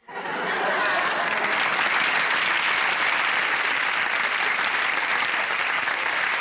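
Studio audience applauding, starting suddenly and holding steady, with a few voices mixed in during the first second.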